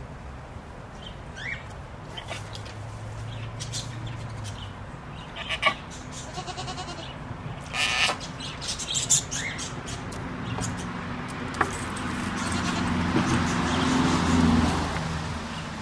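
Goats in a pen, with small birds chirping and a goat bleating briefly about halfway through. A low mechanical hum builds up over the last few seconds and then eases off.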